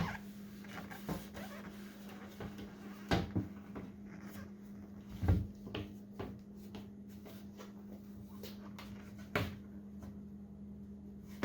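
Car door window glass knocking and scraping against the door shell as it is angled down into the door, a few separate bumps with the loudest about five seconds in, over a steady low hum.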